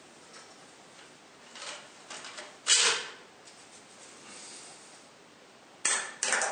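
Knocks and clacks of a toilet golf set: the putter being picked up and handled, with one loud knock about three seconds in, then two sharp clacks near the end as a ball is putted and reaches the plastic cup.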